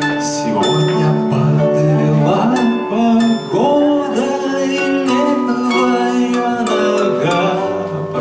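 Live acoustic band music: an electric keyboard and a small plucked string instrument playing a song together.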